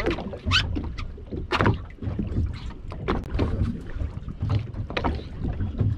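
Water lapping and slapping against the hull of a small open fishing boat, in short splashes about once a second over a steady low rumble.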